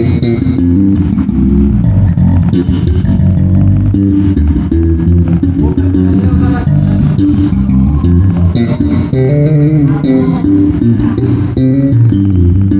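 Yamaha TRB 1005J electric bass guitar being played: a continuous run of short plucked notes moving quickly up and down in pitch.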